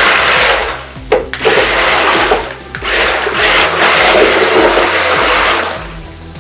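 Water churning and splashing as the wheels of a waterproof RC amphibious stunt car spin through bathtub water. The churning comes in several surges of a second or two each.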